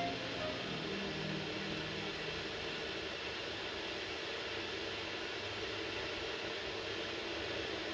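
Steady, even hiss from a pot of spiced stock boiling on the stove.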